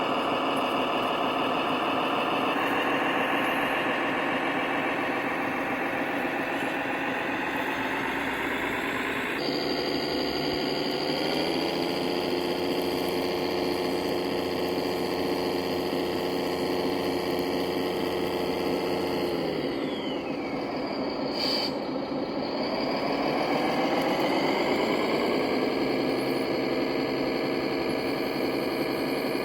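Engine sound of a radio-controlled model vehicle: a steady engine note that steps up in pitch twice, drops sharply about two-thirds of the way through, then climbs back and holds, over a constant background hiss.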